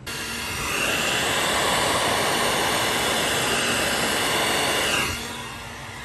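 Heat gun blowing hot air to shrink heat-shrink tubing over soldered wire joints: a steady hiss with a high whine. It is switched off about five seconds in and winds down.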